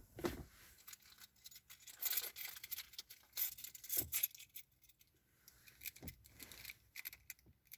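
Intermittent handling noises: light clicks, taps and rustles as small pocket items are moved and set down, in short irregular bursts.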